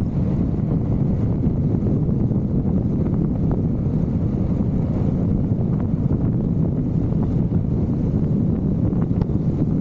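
Wind buffeting the microphone at riding speed: a steady, loud low rushing rumble with no clear engine note above it.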